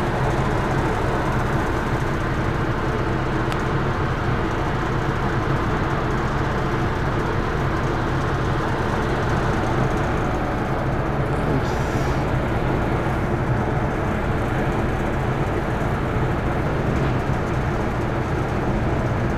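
Ferry's engines and on-board machinery running with a steady low drone while the ship lies at the berth.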